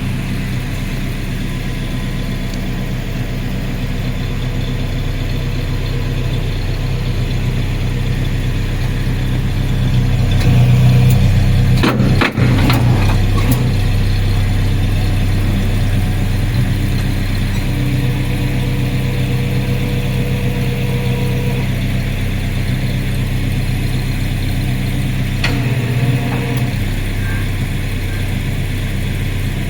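A vehicle engine idling steadily. It grows louder for a few seconds about ten seconds in, with a few sharp clicks or knocks about twelve seconds in.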